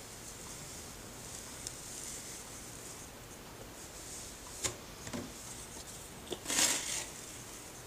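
Drywall knife skimming over a freshly textured ceiling to flatten the peaks of the setting compound for a knockdown texture: a few faint scrapes and ticks, then a longer swipe of about half a second near the end.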